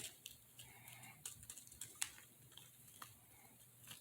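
Faint, scattered light clicks and taps of small objects being handled, over a quiet low room hum.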